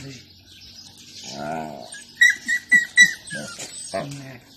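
Alaskan malamute vocalizing in drawn-out whining, howl-like calls. About two seconds in come four short, high squeaks in quick succession.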